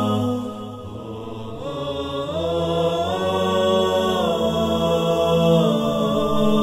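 Vocal chant music: long held notes that shift pitch in slow steps, dipping in level about a second in and swelling again from about two seconds on.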